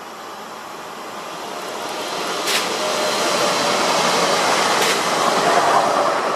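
Electric passenger multiple-unit train passing close by on its wheels and rails, its rumble and rush rising steadily as it approaches and loudest as it goes past. Two sharp clicks, a little over two seconds apart, mark wheels crossing rail joints, and a faint steady tone rides along in the peak.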